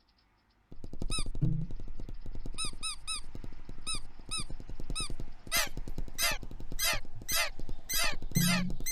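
A cartoon film soundtrack of small birds chirping and squawking in short squeaky calls that come faster towards the end, over a fast, dense clicking patter. It starts suddenly just under a second in.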